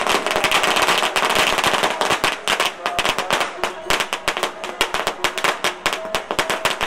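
A firecracker string laid on the road going off in a rapid, irregular run of sharp bangs.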